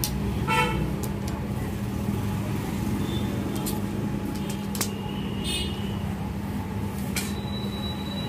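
Steady low background hum and rumble, broken by two short horn-like toots, about half a second in and around five and a half seconds, a few light clicks, and a thin high tone near the end.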